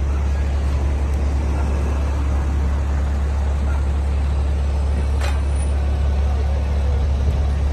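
Battery-electric vehicle chassis being driven: a steady low hum with an even noisy haze, and a single sharp click about five seconds in.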